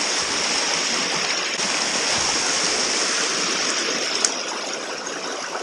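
Fast river water rushing over rocks through a white-water riffle, a steady full hiss, with one sharp click about four seconds in.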